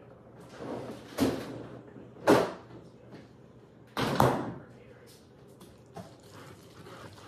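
Kitchen handling noise: three loud thumps with a short whoosh, the loudest about two seconds in, as a refrigerator door is opened and shut. A faint click follows near the end.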